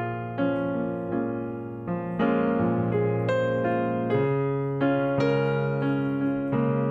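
Background piano music: single notes and chords struck one after another, each fading before the next.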